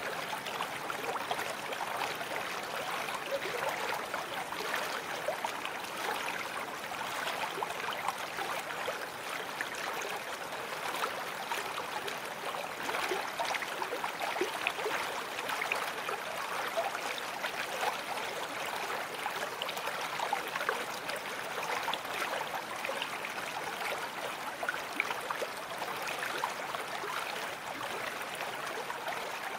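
Babbling brook: stream water running steadily, with many small quick splashes.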